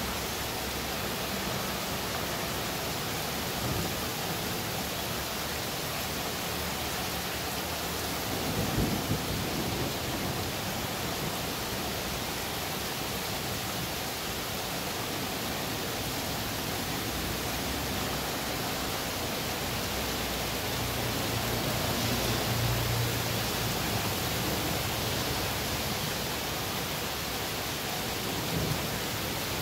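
Thunderstorm: steady rain hissing, with a short burst of thunder about nine seconds in and a longer low rumble of thunder a little past two-thirds through.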